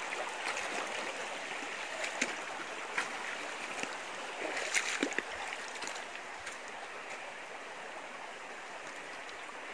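Flowing water of the Lungbang stream, a steady rushing hiss, with a few short sharp knocks or splashes about two, three and five seconds in. It eases slightly from about six seconds in.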